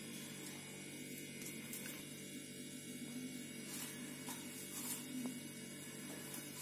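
Steady low electrical hum, with a few faint soft ticks.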